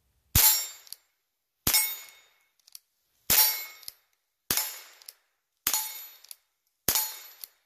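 Henry lever-action .22 LR rifle fired six times, about one shot every 1.2 to 1.6 seconds as the lever is worked between shots. Each shot is followed by a metallic ring and then a small click.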